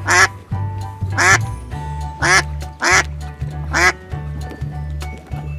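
Duck quacking: five short quacks about a second apart, then it stops near four seconds in. Background music with a steady bass line plays throughout.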